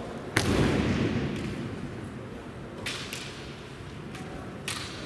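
Kendo strike: a sharp crack of a bamboo shinai hitting armour together with a stamping footfall about half a second in, followed by about a second of noise that dies away. Two lighter knocks come around three seconds in and near the end.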